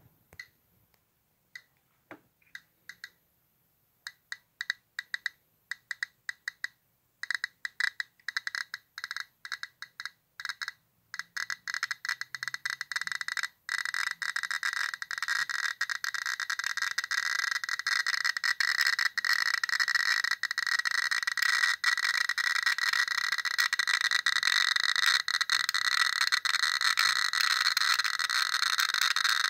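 Geiger counter clicking near a radioactive thorium mineral, thorianite: at first a few scattered clicks, coming faster and faster until, from about halfway, they run together into a dense, continuous crackle. The click rate signals high radiation, about 4,000 counts a minute.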